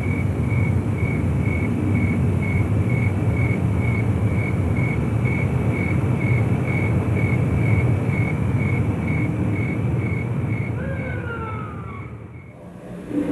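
Steady street traffic rumble, with a faint high tone pulsing about three to four times a second over it. A few short falling tones come in near the end before the noise fades down.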